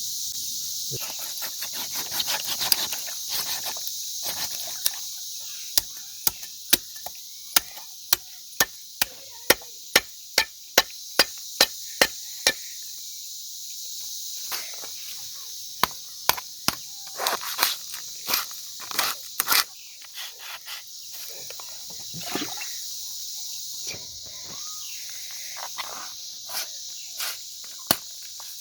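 Steady chirring of crickets, with a run of sharp chops about two a second from about six seconds in to about twelve, then scattered, irregular knocks: a knife chopping a turkey carcass into pieces.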